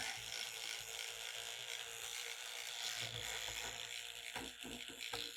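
Toothbrush bristles scrubbing a circuit board wet with alcohol: a soft, steady scratchy brushing, cleaning around freshly resoldered micro USB joints, with a few light knocks near the end.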